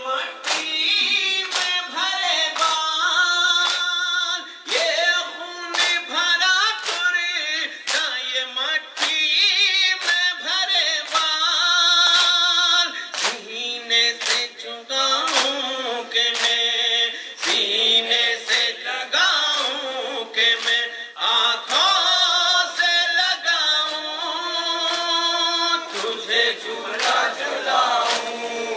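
A noha (Urdu Muharram lament) sung by a chorus of voices, with sharp rhythmic slaps of matam (chest-beating) keeping time, a little faster than once a second.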